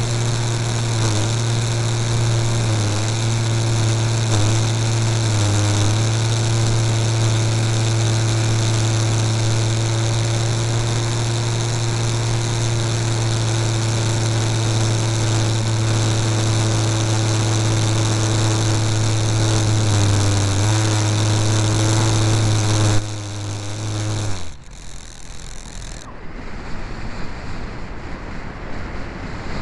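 Radio-controlled model airplane's motor and propeller running steadily at one pitch, close to the onboard camera, with a few brief dips in pitch. About 23 seconds in the motor is throttled back and dies away within a second or two. Wind rushing over the microphone is left as the plane glides down low.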